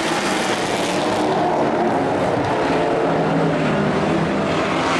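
Engines of several dirt-track race trucks racing around the oval, a loud, continuous engine drone whose pitch shifts as the trucks lap through the corner.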